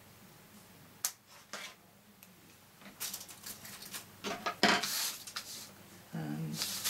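A single quiet snip of small scissors through paper, then paper rustling and being handled, with a clack about two-thirds of the way in as the scissors are set down on a wooden table.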